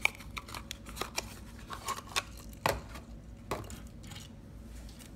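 Small cardboard toy-car box being opened by hand: scattered clicks, scrapes and rustles of the card flap and packaging, with a sharp click right at the start and two more a little past the middle.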